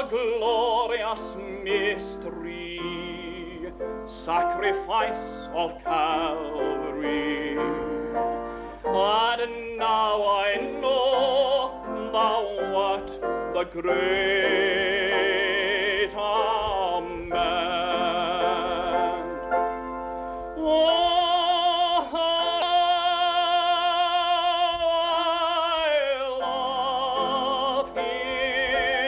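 A singer singing a gospel hymn with strong vibrato and drawn-out notes, holding one long note for about five seconds in the last third.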